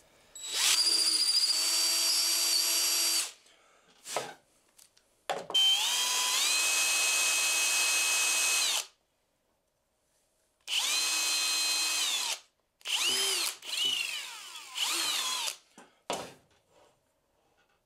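Cordless drill with a 3/16-inch bit widening the through-wire channel in a wooden lure body: a motor whine in several runs of one to three seconds with short pauses between. The pitch rises and falls as the trigger is squeezed and eased.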